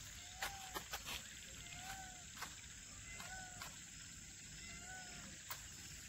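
Evening insect chorus: a steady high-pitched cricket trill, with an animal's short rising-and-falling call repeated about every one and a half seconds. Several sharp clicks, most in the first second.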